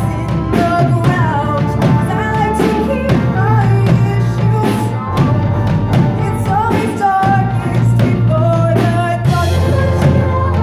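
Live rock band playing a song: a female singer over a drum kit keeping a steady beat, electric guitar, bass and violins.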